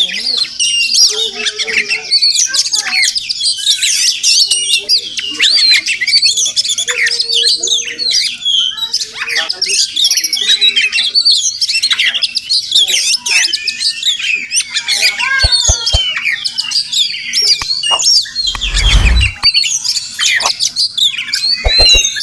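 Oriental magpie-robin singing: a long, varied run of quick whistles, warbles and gliding notes, with hardly a pause. A brief low rumble comes about three quarters of the way through.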